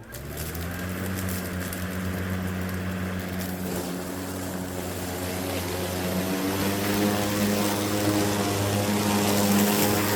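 Lawn mower switching on and running steadily, a pitched drone that grows gradually louder.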